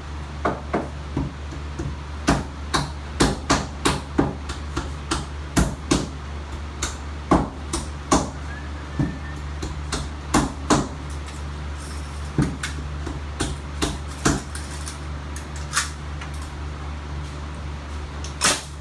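Hammering on wood: a long run of irregular, sharp hammer blows, a few in quick bunches, with a steady low hum underneath.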